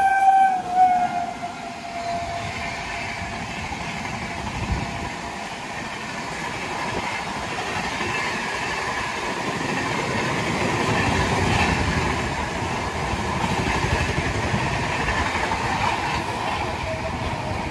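A train horn ends with a drop in pitch under a second in as a WAP 7 electric locomotive passes on the next track. Its passenger coaches then rush by at about 130 km/h, a steady loud rushing with wheel clatter.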